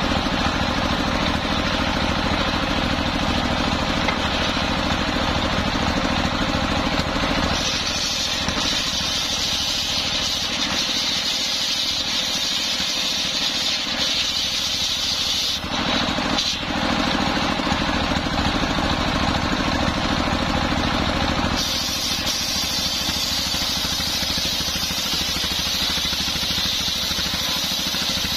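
Homemade belt-driven circular saw bench ripping a coconut-palm log into boards, its stationary engine running steadily. The blade's cutting noise grows brighter and hissier through the middle stretch, about 8 to 21 seconds in, with a brief break about halfway.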